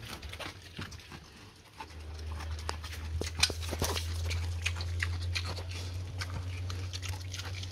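Pet pig chewing raw pumpkin flesh: irregular wet crunches, snaps and smacking clicks of its jaws. A steady low hum runs underneath from about two seconds in.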